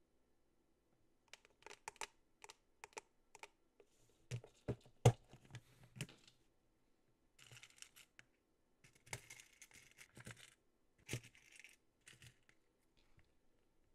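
Clear plastic nail-tip case being handled and opened, with plastic clicks and light clattering as fingers sort through the soft-gel extension tips in its compartments. A sharp plastic click about five seconds in is the loudest sound.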